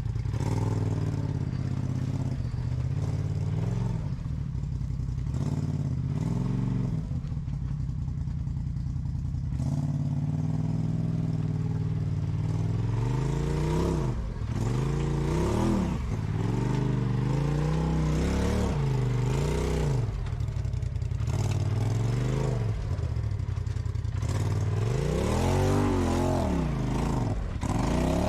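Off-road vehicle engine running slowly at first, then revved up and down over and over during the second half while crawling over rocks, with some clatter.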